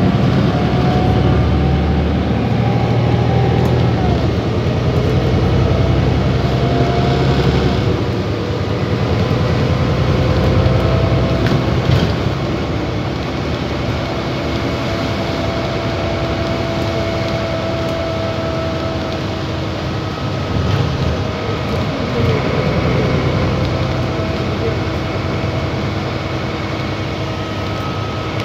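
Van Hool AG300 articulated city bus idling with its diesel engine running, a steady low rumble with faint whining tones over it. The rumble is heaviest for the first several seconds, then eases somewhat.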